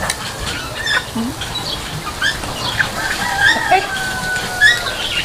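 Chickens clucking and chirping in many short calls, with one longer, steady call about three seconds in.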